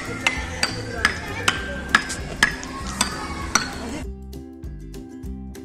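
Child's wooden xylophone struck with a mallet: single ringing notes at an uneven pace, about two a second, over background music. After about four seconds the strikes cut off and only the background music with a steady beat remains.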